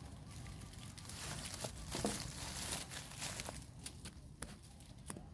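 Bamboo leaves and stems rustling and crackling as they are pulled and pushed apart by hand, with a few sharp snaps.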